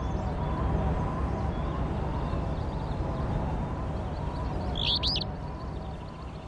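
A small bird gives one short call of a few quick, high chirps about five seconds in, over a steady background of outdoor noise.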